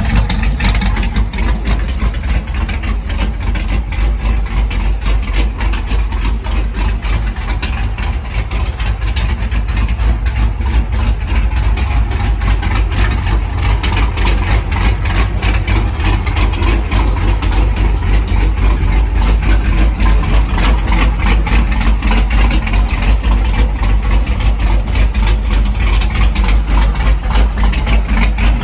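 408-cubic-inch stroker LS V8 idling, a steady run of rapid exhaust pulses with a heavy low end, dipping slightly around the eighth second and then picking back up.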